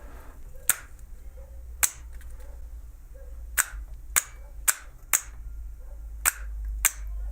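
Magnetic starter (contactor) being switched on and off repeatedly, its armature slamming shut and dropping out in eight sharp clicks, over a steady low hum. The contactor has just had its pole faces cleaned to cure a loud coil hum.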